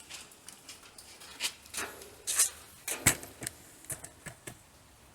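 Irregular clicks, knocks and short scrapes of tools and metal parts being handled on a car in a workshop.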